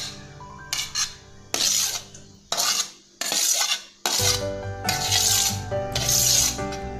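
A metal spoon scraping chopped vegetables off a stainless steel plate into a steel bowl: a series of short, hissy scrapes about once a second, with background music under them.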